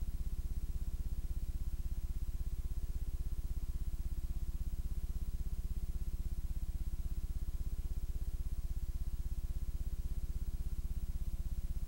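Steady low electrical hum with a fast, even flutter, picked up on the audio line of a VHS tape transfer during a blank, signal-less stretch of tape.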